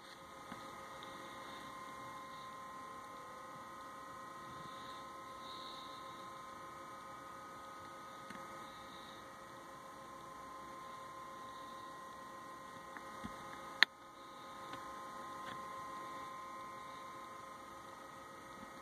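Steady, faint electrical hum with a few thin whining tones over it. A single sharp click comes about 14 seconds in.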